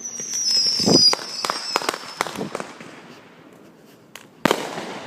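Fireworks going off: a whistle falling in pitch over the first second and a half, a low boom about a second in, a string of sharp crackling pops, then a single loud bang near the end.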